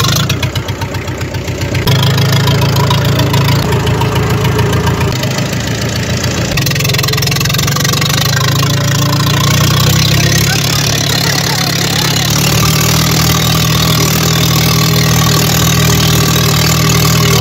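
Old diesel tractor engine running with its silencer removed, the open exhaust loud. It chugs at low revs for about two seconds, then picks up and runs steadily as the tractor drives off.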